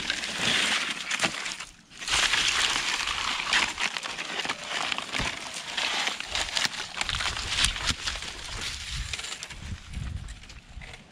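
Dry bark strips, twigs and leaves crackling and rustling, with many sharp snaps and a short break about two seconds in.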